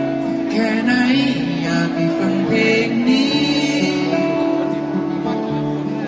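Live acoustic band playing a song: several acoustic guitars, with a voice singing over them in places.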